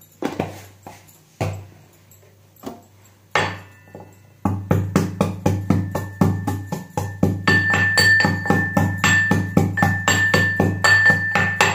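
Metal pestle pounding in a small metal mortar. It starts with a few separate knocks, then from about four seconds in settles into a quick even beat of about four strikes a second, each strike ringing with a metallic tone.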